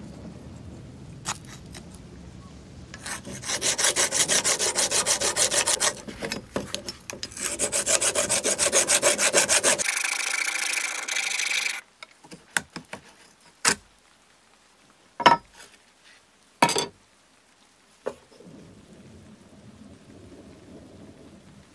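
A hand tool rasping rapidly back and forth in even strokes, in two runs of several seconds, then a short steady scraping hiss. A few sharp, separate clicks follow near the end.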